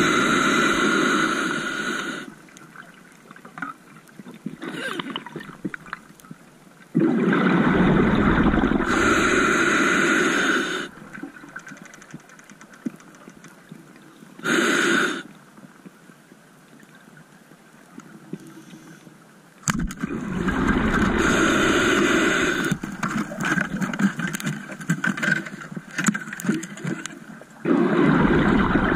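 Underwater scuba breathing through an open-circuit regulator: loud bursts of exhaled bubbles every several seconds, with quieter stretches between that hold faint crackling.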